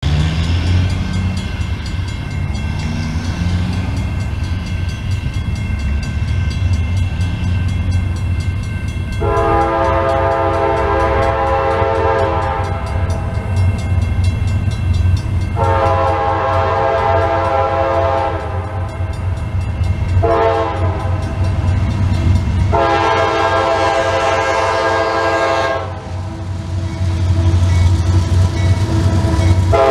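Diesel freight locomotive's multi-tone air horn blowing the grade-crossing signal: two long blasts, a short one and a long one, over a steady low rumble. Another blast begins near the end as the train draws near.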